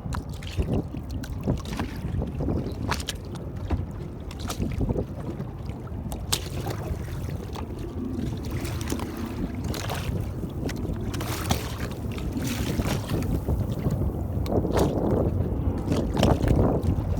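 Small waves lapping and slapping against the hull of a boat at anchor in irregular splashes, over a low rumble of wind on the microphone, growing louder near the end.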